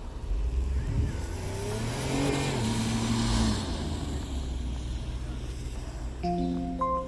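A car drives past, its engine and tyre noise swelling and fading about two to three seconds in, over a steady low traffic rumble. Near the end come a few short beeps.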